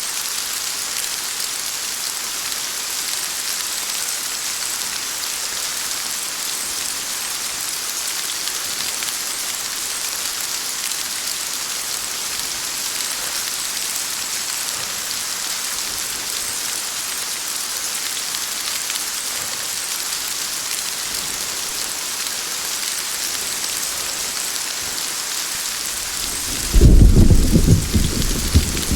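Steady heavy rain hissing. Near the end a sudden loud clap of thunder breaks in and rumbles on.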